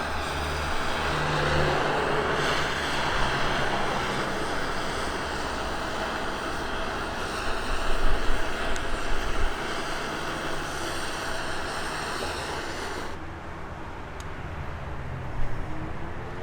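Handheld gas torch (flamethrower) burning with a steady hiss, heating a part until it melts. It shuts off sharply about thirteen seconds in.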